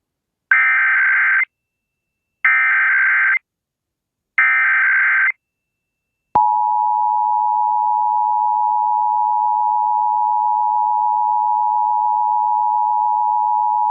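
Emergency Alert System test signal: three one-second bursts of the SAME digital header, about a second apart, then the steady two-tone EAS attention signal (853 and 960 Hz) begins about six seconds in and holds.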